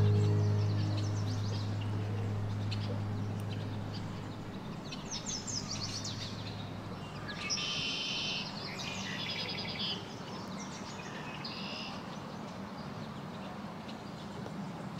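A low held music note fading away over the first few seconds, then a songbird singing in quick high trills and chirps from about five to twelve seconds in, over steady outdoor background noise.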